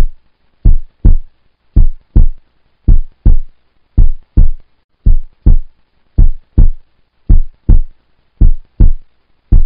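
Heartbeat sound effect: a deep double thump, lub-dub, about once a second, counting off a ten-second countdown timer.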